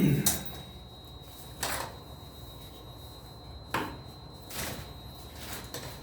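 A few separate knocks and clacks of hard objects being handled, about four spread over several seconds at irregular intervals.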